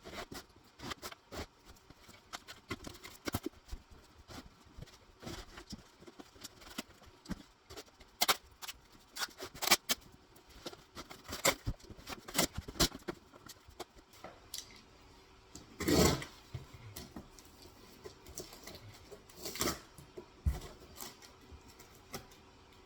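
Heavily taped cardboard shipping box being worked open by hand: irregular scratching, scraping and clicking as the tape is cut and the cardboard handled, with two louder scrapes in the last third.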